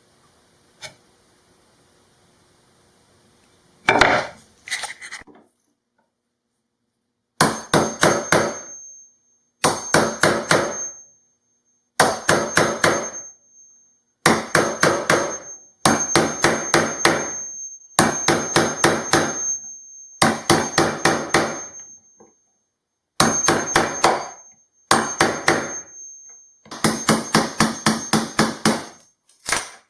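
Hammer blows in quick bursts of four to six strikes, repeating about every two seconds, with a thin high ringing note over them. A short first burst comes about four seconds in, then a pause before the steady bursts begin.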